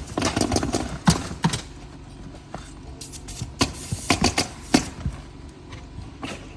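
Flat pry bar working roofing nails out from under asphalt shingles: irregular scrapes and sharp clicks over a steady low hum.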